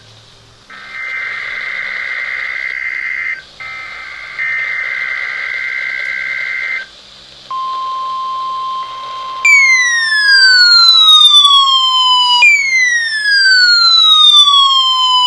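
NOAA Weather Radio alert: harsh buzzing bursts of SAME digital header data, then the steady 1050 Hz warning alarm tone starting a little past halfway. From about two-thirds through, a loud siren-like falling sweep repeats about every three seconds over the tone.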